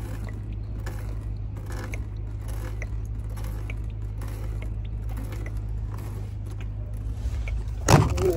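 Walbro 255 electric fuel pump running with a steady low hum, with light clicks and scrapes of parts being handled over it, and a loud knock near the end.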